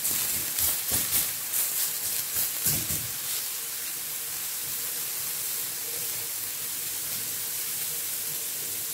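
Eggplant slices sizzling in a ridged grill pan: a steady hiss, with quick dabs of a silicone pastry brush on the slices during the first three seconds.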